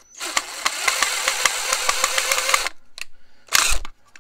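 Cordless drill driving the screw of a plastic old-work electrical box's swing-out mounting tab. It runs for about two and a half seconds with a steady clicking of about five a second, then gives two short bursts. The screw is binding in the tab, which the user takes for cross-threading.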